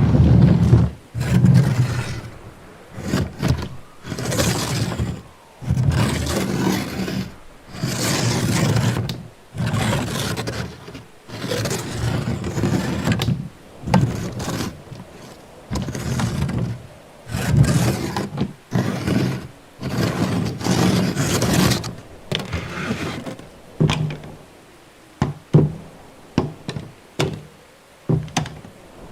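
A run of door sound effects one after another: doors scraping and shutting with heavy low thuds, then shorter, sharper clicks and knocks in the last several seconds.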